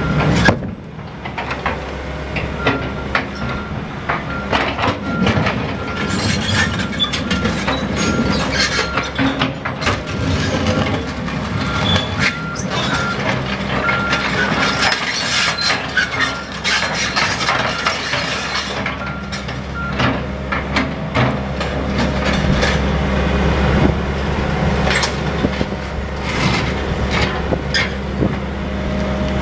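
Deere 120C excavator's diesel engine running under hydraulic load while its bucket scrapes and knocks broken concrete slab on the pavement, the engine working harder near the end. A back-up alarm beeps at a steady pace from a few seconds in until about two-thirds through.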